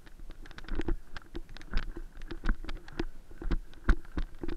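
Camera-wearer's own movement noise: irregular knocks, clicks and rustles, several a second, with louder thuds about every half second, as he moves on foot carrying his gear.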